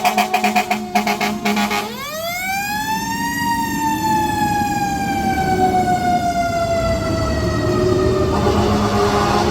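Fire engine air horn blasting in a quick series of short pulses, then the engine's siren winding up sharply and slowly winding back down in pitch. The air horn sounds again near the end.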